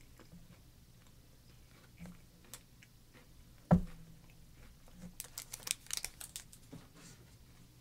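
Quiet eating and snack-handling noises over a low hum, from a Kit Kat being eaten and its packaging handled: a single sharp knock a little under four seconds in, then a quick flurry of crisp crackles lasting about a second and a half.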